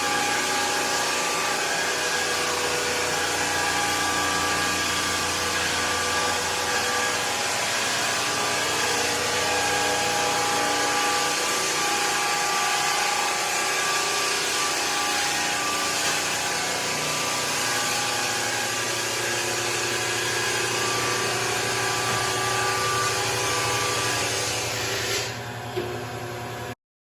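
Rented floor sander running steadily, with its motor whine over the hiss of coarse sandpaper grinding the old finish off hardwood floorboards. Near the end the sound falls off, then cuts out abruptly.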